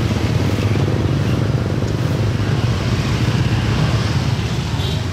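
Motorcycle engine running steadily close by, a low, even rumble.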